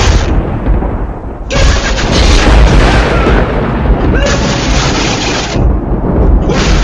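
Very loud, layered 'vine boom' meme sound effects: deep booms piled on each other with no pause, with a fresh hit about a second and a half in, another just past four seconds, and one near the end.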